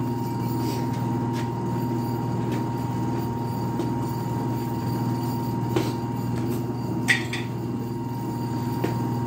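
Rotary phase converter's idler motor running with a steady electrical hum after starting up on its new wiring. A couple of light knocks sound over it, the louder one about seven seconds in.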